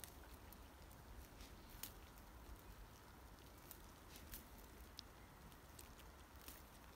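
Near silence: a faint low rumble with scattered soft clicks at irregular intervals.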